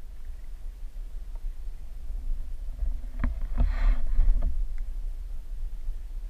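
Creek water heard underwater through a GoPro Hero3's waterproof housing: a muffled, steady low rumble. A few light knocks and a brief hiss come near the middle.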